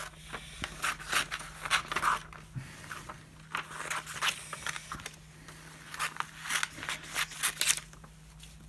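Scissors cutting through a magazine's paper: irregular runs of short snips and crunches in several bursts, with paper handling in between.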